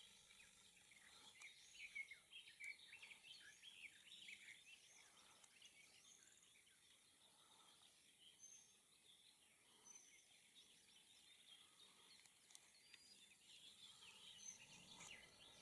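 Faint bird chirping: many quick, high twitters with a few short whistles, over quiet outdoor background noise.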